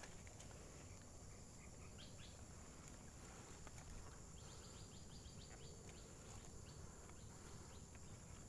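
Near silence: faint outdoor ambience with a steady high hiss, a few soft chirps, and a quick run of short chirps or clicks about halfway through.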